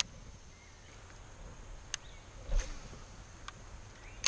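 Quiet outdoor river ambience with a steady high-pitched insect drone, broken by a few faint clicks and one soft, low knock about two and a half seconds in.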